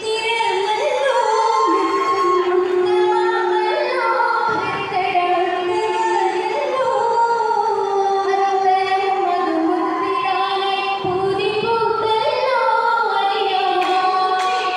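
A group of girls singing an oppana song, a Mappila song, into stage microphones. The melody flows on without a break.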